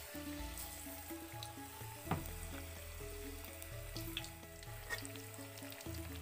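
Battered pieces of fermented cassava sizzling as they deep-fry in hot oil in a wok, with one knock about two seconds in. Soft background music runs underneath.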